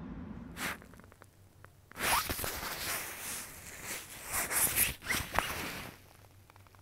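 Zipper being pulled and the nylon of a puffer jacket and belt bag rustling, in a run of loud scratchy bursts through the middle few seconds.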